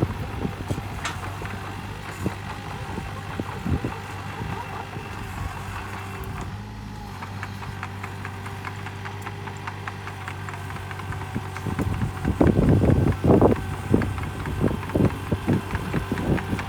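Komatsu PC28UU-2 mini excavator's diesel engine running steadily. From about twelve seconds in, a run of louder clanking knocks comes over it.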